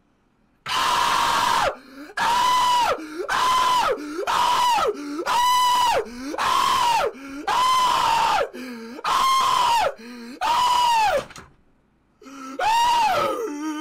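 A young man screaming again and again: about ten loud, high yells of roughly a second each, every one holding its pitch and then dropping off at the end. They start just under a second in, with a short pause before the last one.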